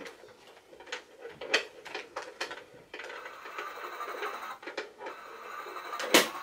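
Handled plastic items clicking and knocking on a table, then from about three seconds in the steady whirr of a small battery-powered motor in a toy or gadget being tested, with one sharp knock near the end.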